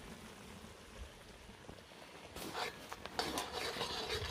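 Faint outdoor quiet, then from about halfway in, a spoon scraping and stirring in a metal cooking pot in short irregular strokes.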